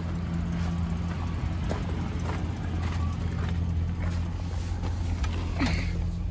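Chevrolet Silverado 5.3-litre V8 idling steadily, with a few faint clicks and a brief rustle near the end.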